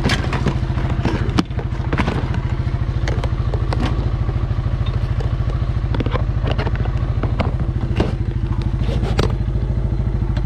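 ATV engine running steadily, with sharp knocks and clatter from the machine and its load, the loudest about one and a half seconds in.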